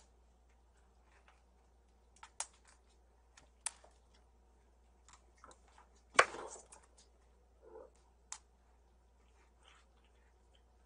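Kittens at play: scattered light clicks and taps, with one louder knock and a brief rustle about six seconds in.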